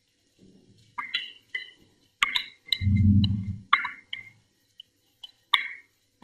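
A slotted plastic spatula scraping and tapping against a bowl as rice is pushed out into a pot of boiling water: a string of sharp clicks and scrapes at uneven intervals, with one low dull rush about three seconds in as a clump of rice drops into the water.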